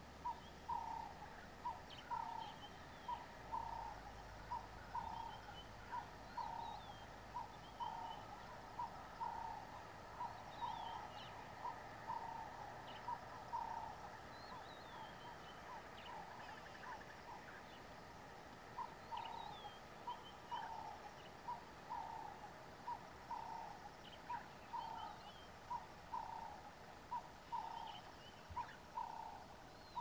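Burchell's coucal giving its bubbling call: long runs of evenly repeated, hollow hooting notes, with a short lull about halfway through before the runs start again. Small birds chirp faintly and high above it.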